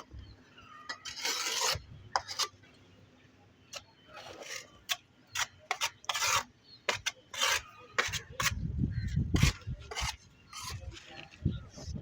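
Tile-laying work: a run of short scrapes and sharp clicks of tools and tiles against mortar and tile. Dull low knocks come about eight to ten seconds in.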